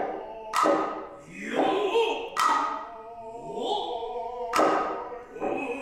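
Noh hayashi drumming: four sharp hand-drum strokes, spaced unevenly, with the drummers' drawn-out kakegoe calls sliding up in pitch between them.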